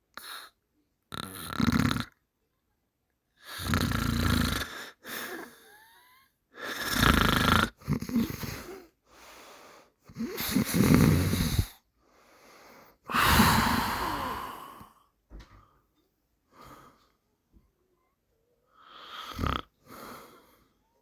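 A man snoring, a long rough snore about every three seconds with softer breaths between. The snores turn smaller and shorter in the last few seconds.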